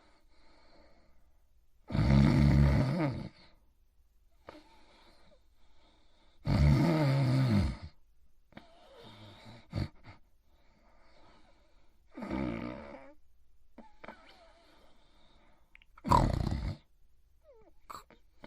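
Snoring in sleep: four loud, rasping snores, each about a second long and a few seconds apart, with fainter breathing between them.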